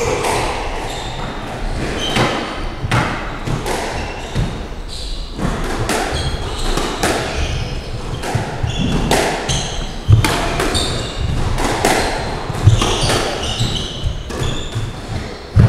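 Squash ball hits: repeated sharp knocks of the ball off the racket and the court walls during play, with footsteps on the wooden court floor.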